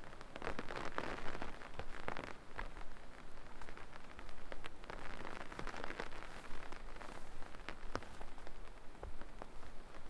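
Light rain dripping in a forest, a scatter of sharp drip ticks over the soft crunch of footsteps on the trail.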